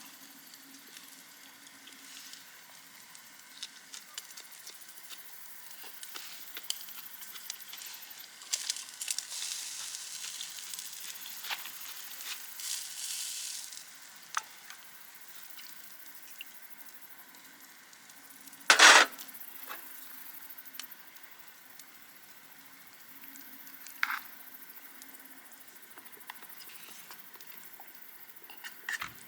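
Food frying and sizzling, with scattered small crackles and one loud clack about two-thirds of the way through.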